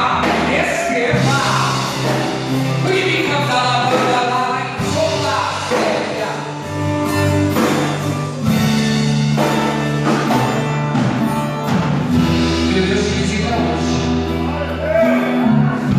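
Live worship band music with singing, over long held bass notes that change every few seconds.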